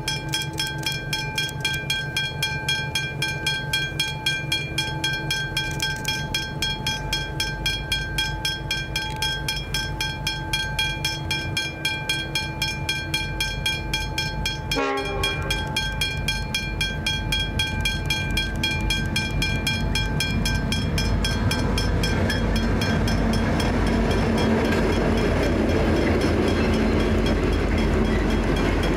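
Westinghouse hybrid level-crossing bell ringing in rapid, even strokes while the crossing is active. From about two-thirds through, the rumble of approaching diesel freight locomotives grows louder, and the train reaches the crossing near the end.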